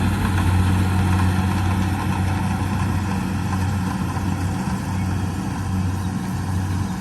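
An engine, most likely on rice-harvesting machinery, running steadily at constant speed: a low, even hum under a loud mechanical rush.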